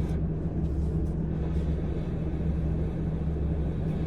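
Steady low rumble of a car's engine and tyre noise, heard from inside the cabin of the moving car.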